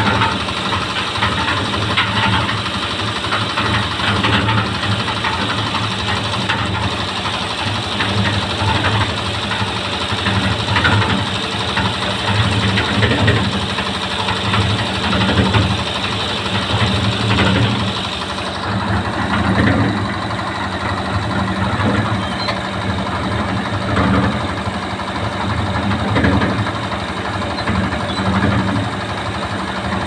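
Concrete mixer machine running: its engine runs steadily with a regular low pulse about every second and a half, and a high hiss drops away about two-thirds of the way through.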